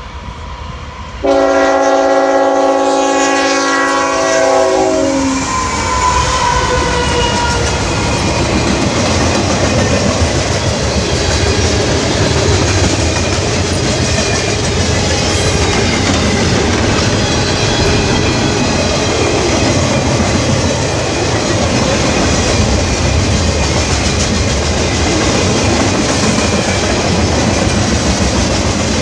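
Locomotive multi-chime air horn sounding a chord for about four seconds from a second in, its pitch dropping as the train passes, followed by the steady roll and clickety-clack of the railcars passing close by.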